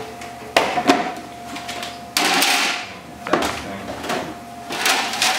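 Kitchen clatter from a metal sheet pan and the warming drawer under a wall oven: sharp metallic knocks, a scraping slide, more knocks, with a faint steady tone underneath.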